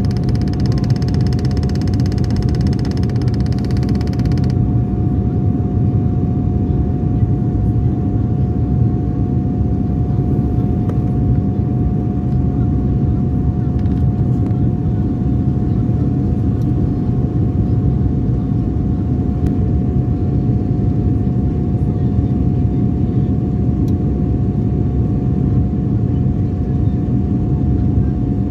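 Airliner cabin noise: a steady, loud, low roar with a steady whine above it. A higher hiss drops away about four and a half seconds in.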